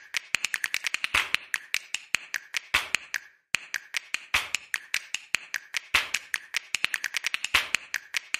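Background music made of quick, clicky percussive notes in an uneven rhythm, with a brief break about three seconds in.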